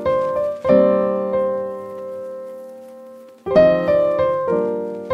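Background music on solo piano: slow chords, each struck and left to ring out. A longer fade in the middle gives way to new chords about three and a half seconds in.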